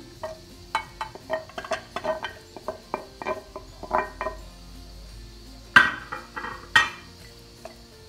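Wooden spatula scraping food off a ceramic plate into a glass bowl: a run of light clinks and taps, about three a second, then two sharper knocks about a second apart.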